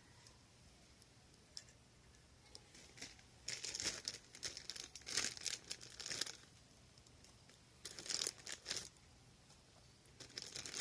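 Crinkling and rustling of something being handled, in four short bursts with quiet gaps between them.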